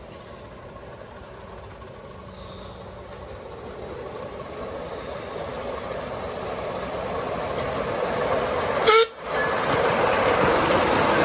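Miniature ridable railway train approaching along the track over a wooden bridge, its running noise growing steadily louder as it nears. About nine seconds in, the locomotive gives a single short toot.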